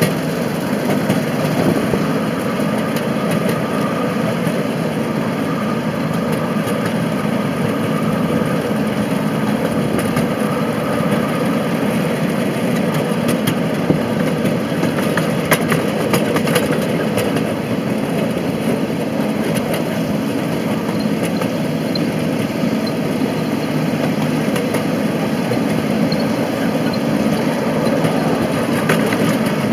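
A 7.25-inch gauge miniature diesel locomotive running steadily under way, its engine and the train's wheels on the track making a continuous rumble. Scattered short clicks sound over it, several bunched about halfway through and again near the end.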